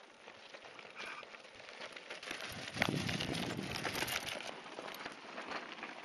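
Mountain bike tyres crunching and crackling over a rocky gravel track as several riders pass close by, loudest about three to four seconds in.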